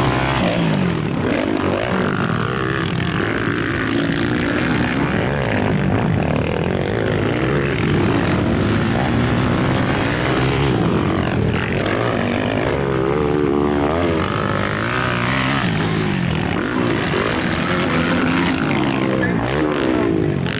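250cc motocross dirt bike engines racing on a dirt track, their pitch climbing and dropping over and over as riders open and close the throttle and shift gears, with more than one bike heard at times.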